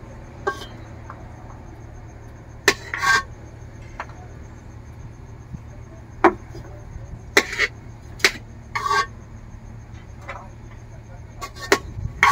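Metal serving spoon clinking and tapping against a metal pot and steel plates as rice is dished out, about a dozen sharp clinks at uneven intervals, over a steady low hum.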